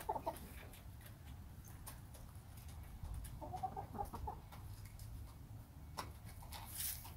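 Backyard hens clucking in short, low phrases, once at the start and again about three and a half seconds in, with a few sharp taps near the end.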